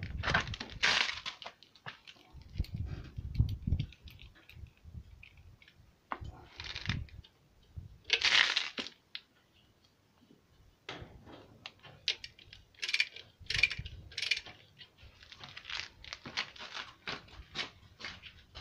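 Hand-tool work on an engine's flywheel bolts: scattered metallic clicks, clinks and scraping from a ratchet wrench and bolts being handled, with a few dull knocks in the first half and a quicker run of clicks near the end.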